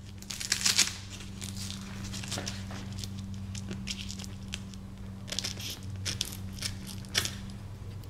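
Scissors trimming the end of a hook-and-loop (Velcro) strap: several short, crisp snips, the loudest about half a second in.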